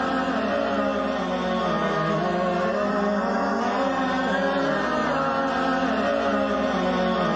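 Experimental electronic music played live on patched electronic gear: a dense, steady drone of many stacked tones that bend slowly up and down.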